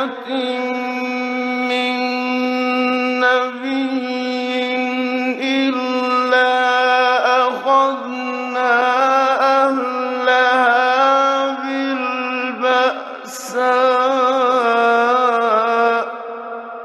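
A man's voice chanting the Quran in the melodic, drawn-out mujawwad style: long held notes with ornamental turns, from a 1960s radio recording. About 16 seconds in, the phrase ends and the voice dies away in an echoing tail.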